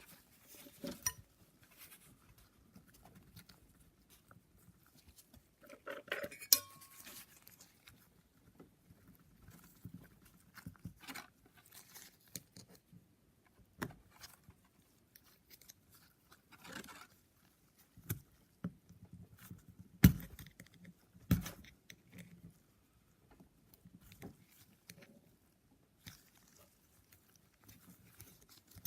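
Scattered light metallic clinks and knocks as small engine parts and tools are handled on a workbench, with a short clatter early on and two sharper knocks about two-thirds of the way through.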